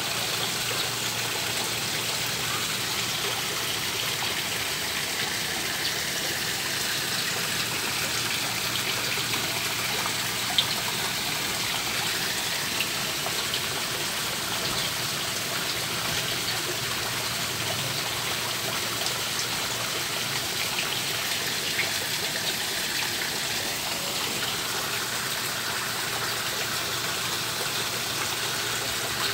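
Steady rush of running water in a koi pond, with a few brief faint splashes as the fish break the surface.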